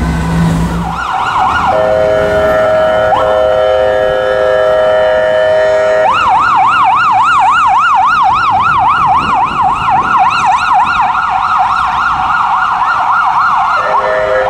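Ambulance siren: a steady multi-tone horn blast, then a fast electronic yelp rising and falling about two to three times a second for some eight seconds, with the horn blast sounding again near the end.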